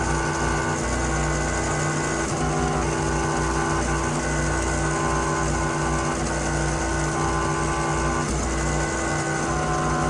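Steady background music whose notes shift about every two seconds, possibly with a small engine running underneath.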